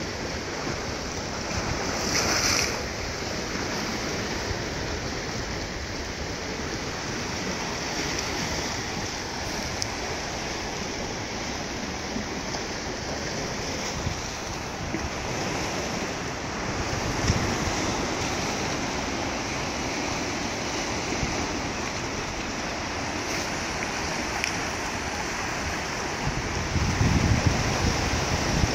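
Sea waves washing steadily at the shore, with wind buffeting the microphone, strongest in a low rumble near the end.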